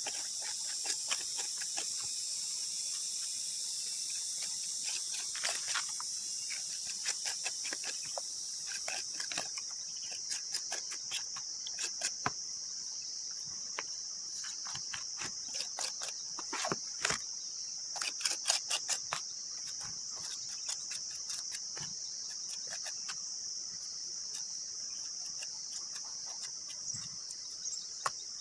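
Steady high-pitched insect chorus, with scattered clicks and scrapes from a trowel and hands working wet cement onto a cement flowerpot. The clicks come thickest about two-thirds of the way through.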